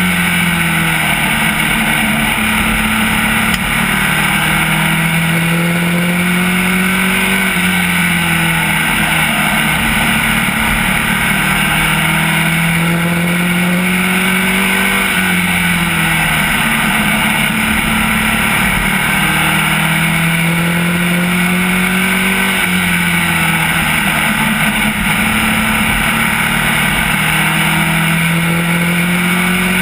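SK Lite modified race car engine, heard from inside the cockpit at racing speed. The engine climbs in pitch for several seconds, drops off sharply, then climbs again, repeating about every seven to eight seconds as the car runs the straights and turns of a short oval.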